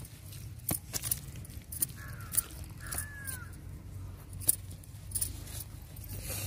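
Hands planting cabbage seedlings in dry soil and handling a plastic basket: scattered soft knocks, scrapes and rustles. A bird calls briefly twice, about two and three seconds in.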